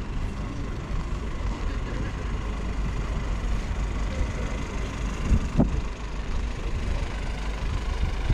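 Street ambience with a vehicle engine running and a steady low rumble, and one short knock about five and a half seconds in.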